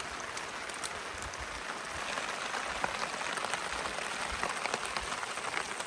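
Steady rain falling, a dense run of small drop hits over an even hiss, growing a little louder about two seconds in.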